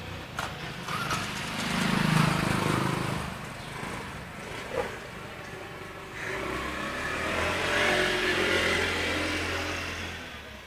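Motor vehicles passing on a street, in two swells: one rising and fading about two seconds in, and a longer one from about six to ten seconds in with a steady engine hum.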